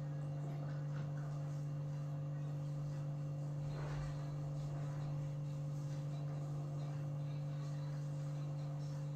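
Steady low electrical hum, with a brief soft rustle about four seconds in.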